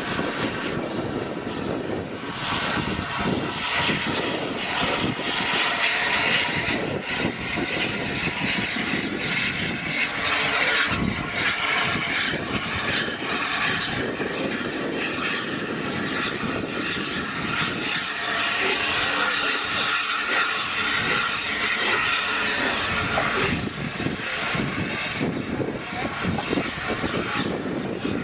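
Continuous loud rushing vehicle noise with a dense, irregular crackle, holding steady throughout.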